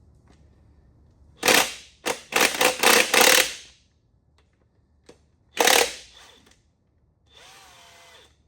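Impact gun hammering on the LS1 V8's connecting-rod cap bolts: a short burst, then a longer run of rapid hammering, then another short burst a couple of seconds later.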